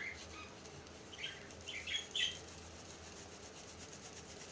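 A few short, faint high chirps like a small bird's, one right at the start and a quick cluster between about one and two seconds in, over a faint steady hum.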